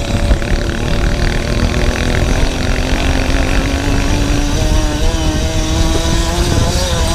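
Small dirt-bike engine running under way, heard from the bike itself, with heavy wind rumble on the microphone. The engine pitch climbs steadily through the middle as the bike speeds up.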